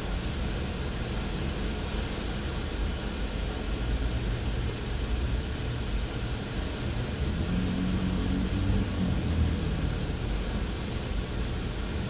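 Steady low rumble of a car idling, heard from inside its cabin, with a brief low hum standing out about eight seconds in.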